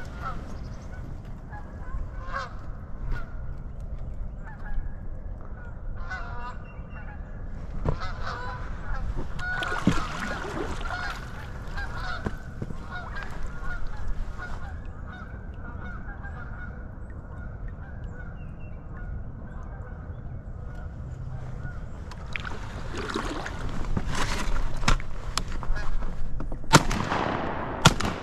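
Canada geese honking, scattered calls building into a loud chorus of several birds over the last few seconds as the flock flushes. A single sharp bang sounds about a second before the end.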